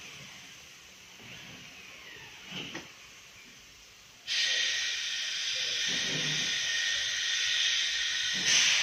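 A steady hiss starts suddenly a little over four seconds in and carries on loudly. Before it there are only faint workshop sounds and one short knock.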